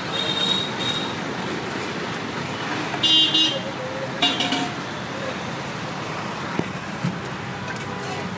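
Road traffic running past with vehicle horns honking: one horn ends about a second in, and short high-pitched toots come about three seconds in and again just after four seconds.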